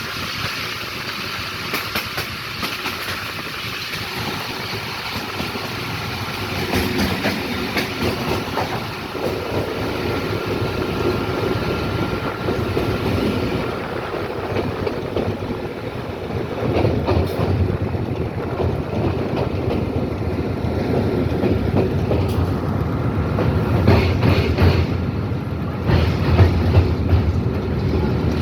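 Train running on the track, wheels clattering over the rail joints. The low rumble grows heavier about halfway through.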